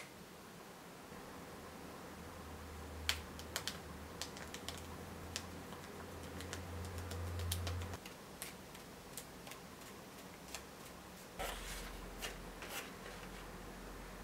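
Irregular light clicks and taps, starting about three seconds in, from small plastic kit pieces and utensils being handled on a tabletop, with a short rustle near the end.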